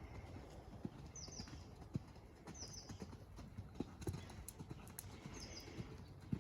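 A horse's hoofbeats: irregular dull thuds, about one or two a second. A small bird chirps in short doubled notes every second or so.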